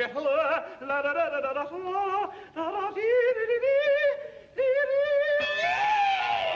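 A cartoon character singing in a warbling voice with a fast, wide vibrato, in short phrases with brief breaths between them, ending on a long held note that swoops up and falls away.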